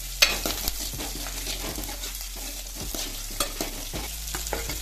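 Chopped shallots, mustard seeds and curry leaves sizzling in hot oil in an aluminium pot while a steel ladle stirs them. Several sharp clinks of the ladle against the pot are heard, the loudest just after the start.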